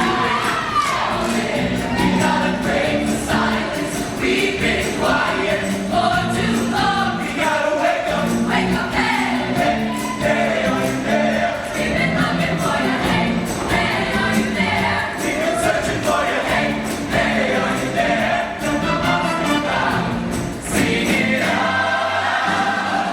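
High-school show choir singing in full voice over its live instrumental accompaniment. Late on, the low accompaniment drops out for a moment while the voices carry on, then returns.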